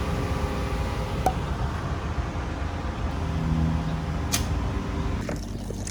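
Steady low rumble and hum, with two faint clicks.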